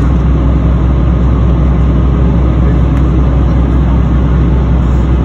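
Ferry's engine running steadily: a loud, deep, even hum with a steady noisy hiss over it, heard from on board.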